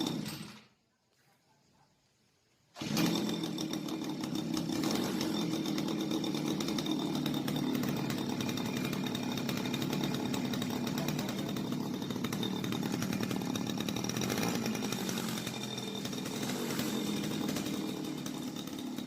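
Small grass-trimmer engine fitted to a bicycle, running steadily at a fairly even speed; it cuts in suddenly about three seconds in, after a short silence.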